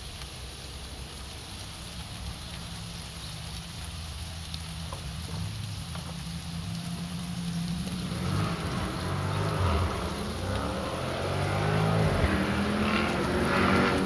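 A motor vehicle's engine, its pitch rising and falling as if revving or changing gear, getting steadily louder through the second half as it comes closer.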